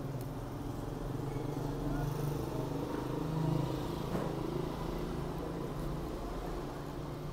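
A motor vehicle's engine running with a steady low hum, a little louder about three and a half seconds in.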